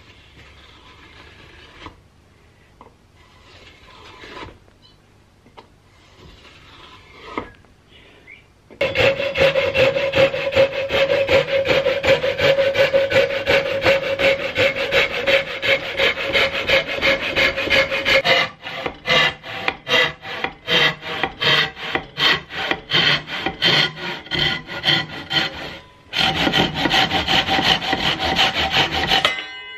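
Japanese-style hand saw with some bent teeth cutting through a wooden board held in a vise: rapid rasping back-and-forth strokes start about nine seconds in, loosen into separate, choppier strokes in the second half, and stop briefly once near the end. Before the sawing, only faint handling of the wood.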